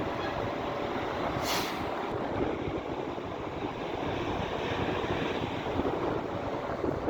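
Heavy diesel machinery of a concrete pour, a concrete pump truck and ready-mix mixer, running steadily, with a short hiss about one and a half seconds in.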